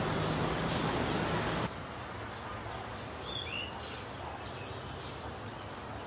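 Outdoor lakeside ambience: a steady hiss of background noise that drops quieter about a second and a half in, with a couple of short bird chirps near the middle.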